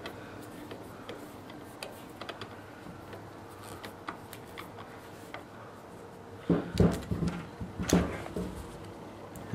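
A reassembled one-barrel carburetor being handled on a towel-covered bench: a few faint clicks and taps, then a cluster of knocks and thuds about two-thirds of the way in as it is picked up and turned over.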